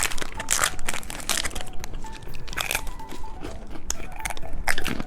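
Close-up crunching and wrapper crinkling from umbrella-shaped chocolate candies being unwrapped and eaten. The crackles come dense at first and thin out to scattered snaps after about a second and a half.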